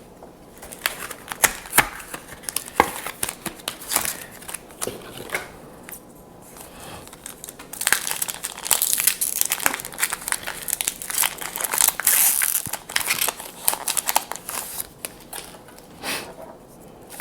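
Foil Pokémon booster pack wrapper crinkling and tearing as it is opened. Scattered crackles at first, then a dense stretch of crinkling from about eight seconds in that lasts some five seconds.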